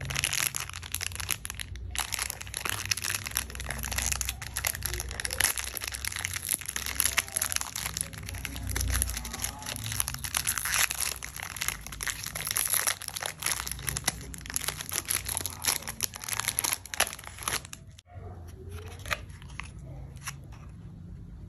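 Thin plastic candy wrapper of a Yupi Love Burger gummy crinkling and crackling as it is worked open and peeled off by hand. The crackling stops near the end, leaving only a few soft handling ticks.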